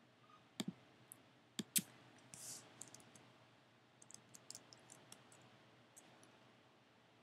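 A few sharp computer clicks in the first two seconds, then a quick run of soft keystrokes on a computer keyboard about four seconds in, typing a search into Excel's Find box.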